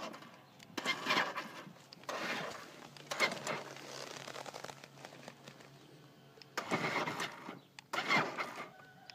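Electric motor and gearbox of a 6-volt children's ride-on car whirring in four short bursts as it is driven and steered by its radio remote, with a faint steady hum between bursts. The repaired remote-control receiver is responding.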